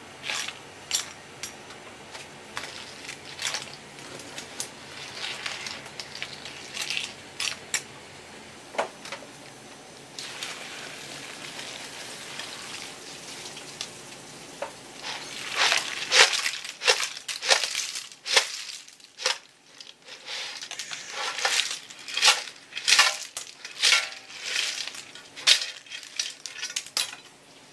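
Boiled asari clams ladled out of a pot of boiling water into a plastic colander. Shells clatter and click on the ladle and in the colander over the steady bubbling of the water, and the clatter comes thick and fast in the second half.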